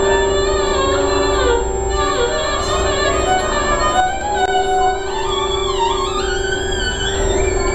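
Violin played in the North Indian classical manner, with gliding, sliding phrases in raag Lalit over a steady held drone note. A long upward slide comes about three quarters of the way through.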